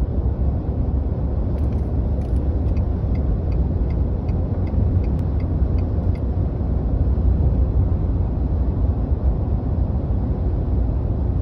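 Steady low rumble of road and engine noise inside a car's cabin while it cruises on a highway. A light ticking, about three times a second, runs through the first half.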